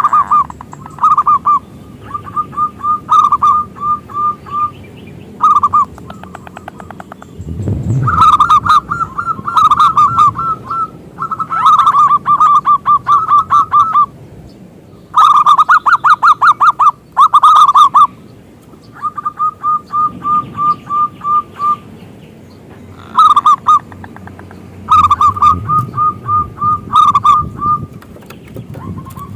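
Zebra dove (perkutut) singing loudly: phrases of rapid staccato coos at one steady pitch, each lasting one to three seconds, repeated over and over with short pauses between them.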